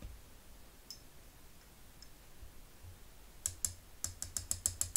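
A mixing tool clicking against a small glass cup while stirring pigment: a quick run of about ten light clicks, several a second, starting about three and a half seconds in.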